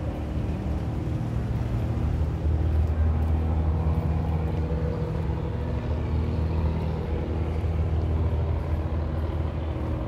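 A boat's engine running steadily with a low, even hum.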